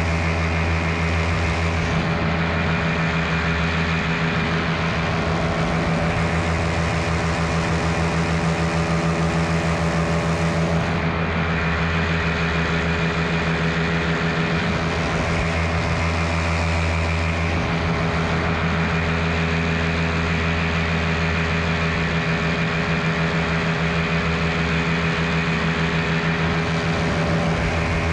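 Miniplane Top 80 paramotor, its single-cylinder two-stroke engine and propeller running at a steady throttle.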